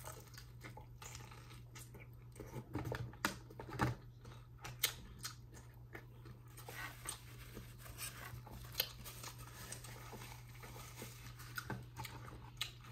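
Close-up eating sounds: a person chewing and tearing into a fried chicken thigh, with scattered sharp clicks and crunches over a steady low hum.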